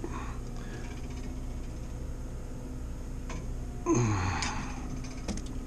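A steady low hum, with a short man's grunt or breathy exclamation, falling in pitch, about four seconds in.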